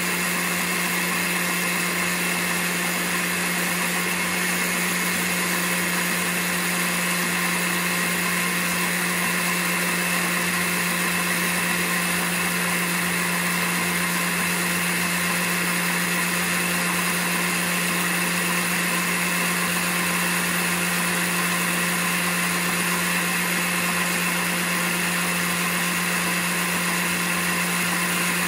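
Countertop blender motor running steadily at one speed with a constant hum, emulsifying Caesar dressing while olive oil is drizzled in through the lid in a thin stream.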